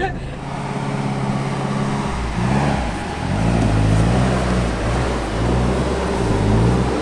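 Avtoros Shaman 8x8 all-terrain vehicle's engine running as it drives. From about two seconds in, its pitch rises and falls several times as the throttle is worked.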